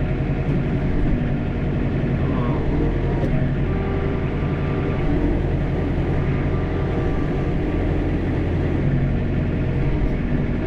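John Deere 4066R compact tractor's three-cylinder diesel engine running steadily, heard from inside the cab while the operator works the grapple.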